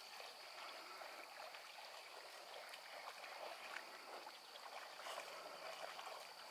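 Faint sloshing and trickling of shallow marsh water, with small ticks, under a steady high-pitched whine.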